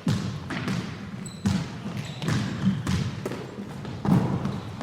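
Basketballs bouncing on a hardwood gym floor: irregular thuds, each echoing in the large hall.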